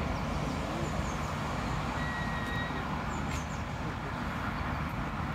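Outdoor park ambience: a steady low rumble, with a few faint high chirps about a second in and around three seconds in.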